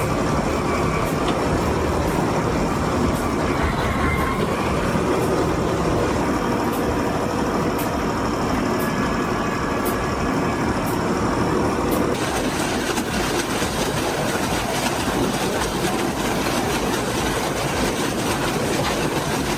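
Heavy wood-processing machinery running steadily, with a dense engine and mechanical drone and scattered sharp clicks and cracks. The sound changes character about twelve seconds in.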